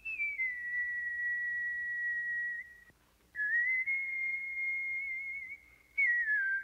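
A person whistling three long, held notes that slide down or up into each pitch, with brief breaks about three and six seconds in.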